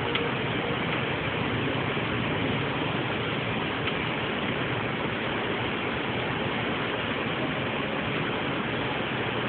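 Steady hushed murmur and rumble of a packed stadium crowd keeping a moment of silence. The last of a held musical note fades out right at the start.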